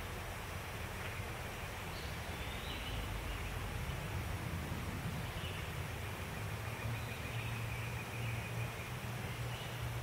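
Woodland ambience: a steady hiss and low rumble, with faint high chirps now and then and a thin, steady high note late on.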